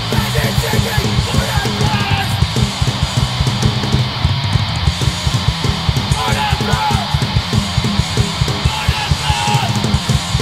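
Hardcore punk band playing live: distorted electric guitars and bass over fast, driving drums on a full drum kit.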